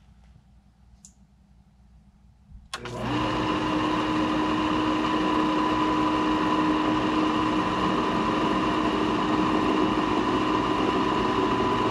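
Condensate pump kicking on with a click about three seconds in, then running with a steady hum and whine as it pumps out water poured into its reservoir to test it.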